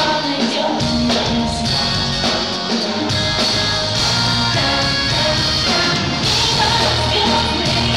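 Live pop-rock band playing a song, with singing over guitar, bass and drums, loud and steady.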